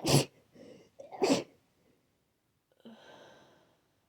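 A person with a head cold sneezing twice in quick succession, about a second apart, with a short breath between, then a softer, longer breath about three seconds in.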